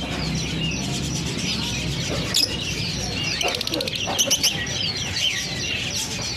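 Many caged songbirds chirping and twittering at once in a dense chorus of short, quick calls, with a few sharp clicks a little past the middle.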